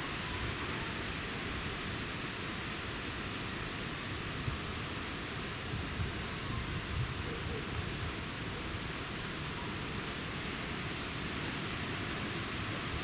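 Insects, crickets or grasshoppers, chirring steadily in a high-pitched band over an even background hiss.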